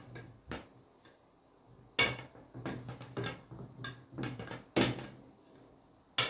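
Long thin wooden rolling pin (oklava) knocking and rolling against the table as dough is rolled out: a series of sharp knocks, the loudest about two seconds in, near five seconds in and just before the end.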